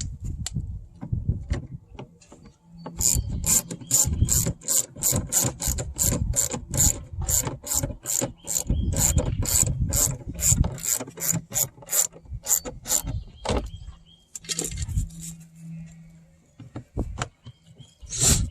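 Ratcheting hand tool clicking in an even rhythm of about three to four clicks a second for roughly ten seconds, a screw being driven back in during door-panel reassembly, with some knocks and handling noise before and after.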